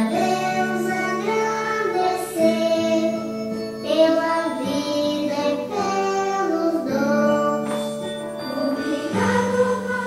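Children's song: a sung melody with held notes over steady backing music.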